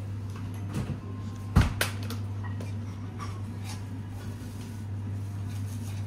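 A sharp knock about one and a half seconds in, with a few lighter clicks around it, over a steady low hum.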